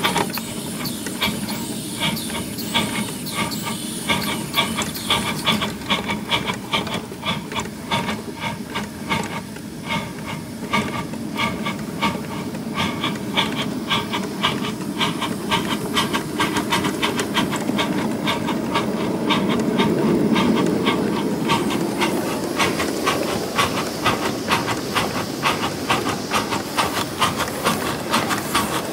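5-inch gauge live-steam model of a South African Railways class 23 4-8-2 running: a quick, even beat of exhaust chuffs over a steady hiss of steam.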